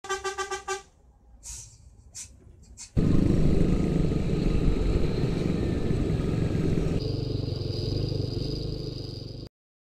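A short pulsing tone, a few brief swishes, then a vehicle engine running loudly for about six seconds before cutting off suddenly.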